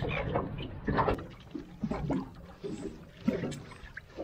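Water splashing and sloshing as a mesh catch bag is held and moved in the water against a boat's side, with a few short knocks.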